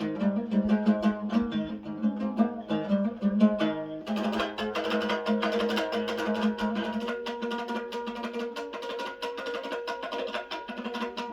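Dombra playing a Kazakh kui: fast, rhythmic strumming of plucked strings. About four seconds in, the playing turns fuller and brighter.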